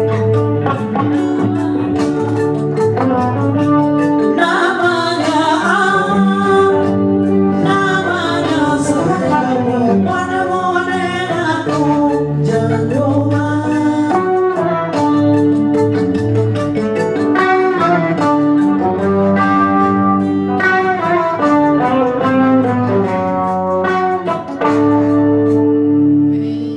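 A woman singing a Malian jeli (griot) song into a microphone over steady instrumental accompaniment.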